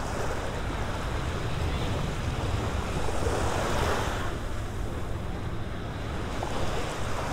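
Small waves washing and lapping onto a sandy beach in shallow water, swelling once about three seconds in, with wind buffeting the microphone.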